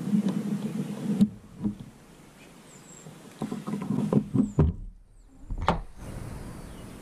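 Hands rubbing and pressing a stick-on convex blind spot mirror onto a car's side mirror glass: a steady rubbing sound, then a series of clicks and knocks, and one sharp knock near the end.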